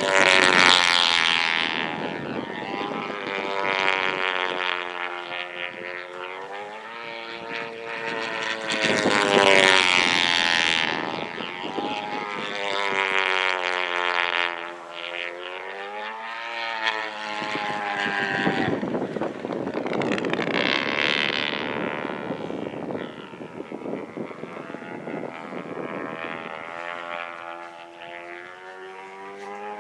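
World Models Vendetta RC pylon racer's YS 115 glow engine screaming at full throttle in repeated high-speed passes. The engine note swells loud as it goes by, then drops in pitch as it pulls away, several times over.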